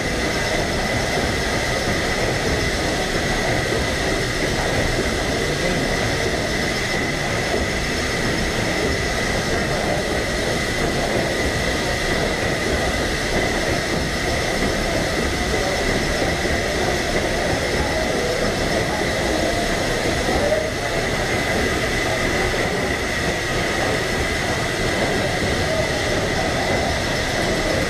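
Engine room of a World War II Liberty ship under way: the triple-expansion steam engine running, a loud steady machinery noise with a thin, constant high whine over it.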